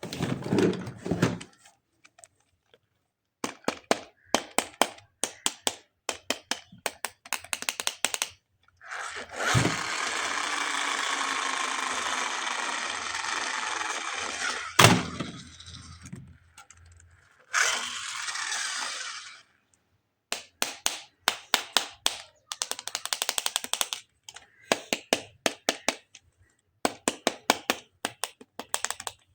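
Plastic toy parts and packaging being handled: quick runs of sharp clicks and taps. About ten seconds in comes a steady hissing noise lasting about six seconds, with a sharp knock near its end, and a shorter hiss follows a couple of seconds later.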